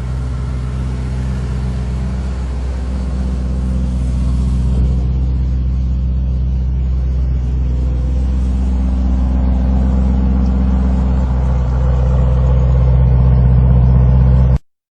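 Lamborghini Urus SUV's twin-turbo V8 running with a steady low drone that slowly grows louder, then cuts off abruptly near the end.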